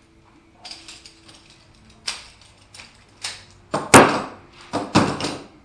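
A series of knocks and clatters from objects being handled, scattered at first and then a cluster of loud, sharp knocks about four seconds in.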